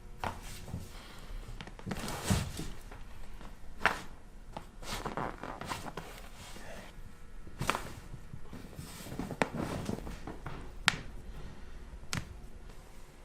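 Shuffling and rustling of bodies and a treatment table during a chiropractic adjustment, with about five sharp clicks spread through it.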